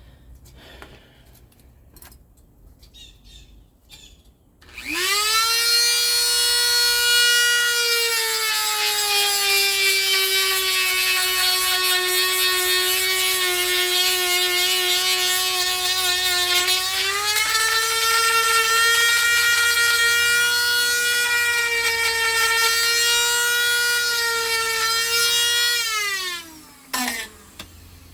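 Small handheld electric grinder grinding out a cracked PVC weld seam before it is re-welded. After a few light handling clicks it spins up about five seconds in to a loud high whine, its pitch dips for several seconds in the middle and then rises again, and near the end it winds down with a falling pitch.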